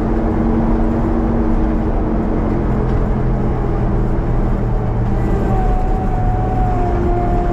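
An old farm vehicle's engine running steadily under load. A faint whine joins it about five seconds in.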